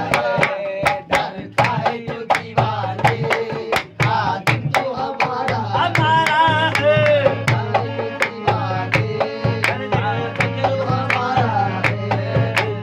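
Qawwali music: a harmonium carries the melody over a quick dholak drum beat and hand claps. A sung line with wavering held notes stands out around the middle.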